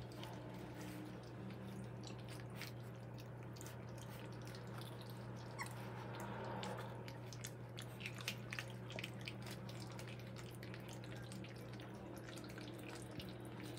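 Three-week-old Cane Corso puppies lapping and licking a mush of puppy food and goat's milk from a metal puppy pan: faint, irregular wet clicks and smacks, over a steady low hum.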